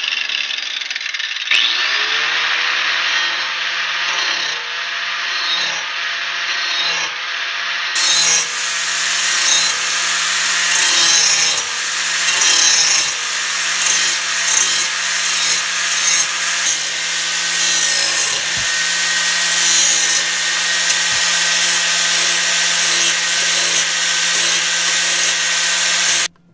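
Handheld angle grinder running and grinding the cutting edge of a steel lawn mower blade to sharpen it. The motor's whine settles to a steady pitch about two seconds in, and the grinding rises and falls as the disc is worked along the edge. It stops suddenly just before the end.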